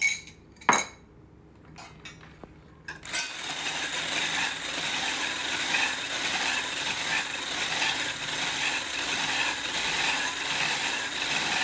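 Two sharp knocks, then about three seconds in an electric stick blender with a whisk attachment starts and runs steadily in a stainless steel saucepan, beating egg yolks with lemon juice and cornstarch for avgolemono sauce.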